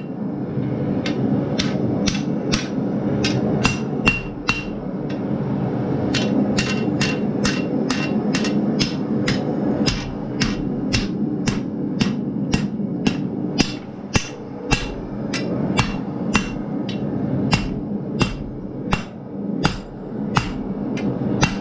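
Hand hammer striking a red-hot steel bar on an anvil, about two blows a second with a short pause about five seconds in, folding the bar's bent end back on itself; many blows leave a short metallic ring. A steady low rumble runs underneath.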